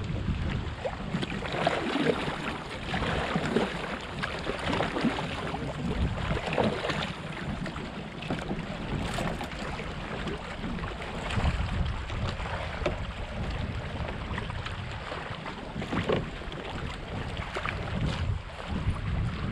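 Wind buffeting the microphone in uneven gusts, over water sloshing and splashing around a kayak.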